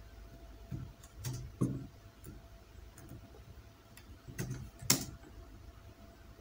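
Computer keyboard keys being typed while editing code, about seven scattered clicks with pauses between, the loudest about five seconds in.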